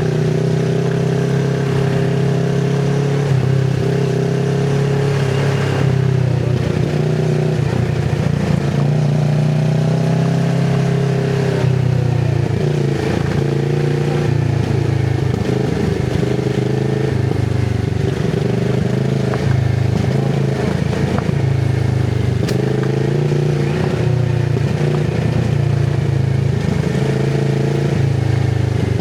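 Kawasaki Z650RS parallel-twin engine running through an IXIL MK2 full exhaust with its dB killer fitted. It runs at low to moderate revs, the note rising and falling gently with the throttle, and turns more uneven and broken for a stretch in the middle as the bike rides a rough trail.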